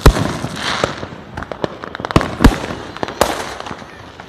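Fireworks going off: a loud bang right at the start, more bangs about two and a half and three seconds in, with many smaller crackling pops in between.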